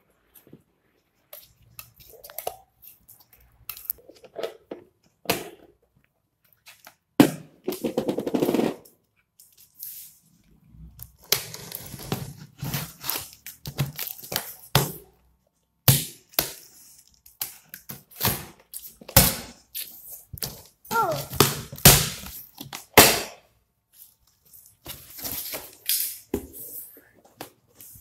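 Packing tape being pulled off a cardboard carton and the flaps opened: irregular rips, crackles and knocks, with a few longer crackling stretches and many single sharp clicks.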